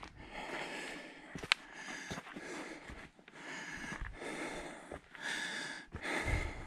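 A person's heavy breathing from the exertion of climbing uphill, loud breaths about once a second, with one sharp click about one and a half seconds in.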